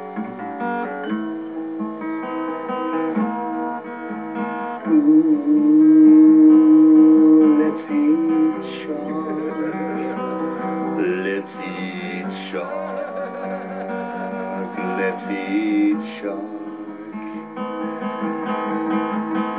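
A man singing a song to his own strummed acoustic guitar; a long held sung note about five seconds in is the loudest part.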